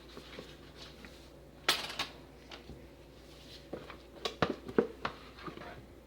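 Utensil scraping and tapping against a batter container as the last of the white cold process soap batter is scraped onto the top of the mould: scattered light scrapes and clicks, a cluster about two seconds in and another near the end.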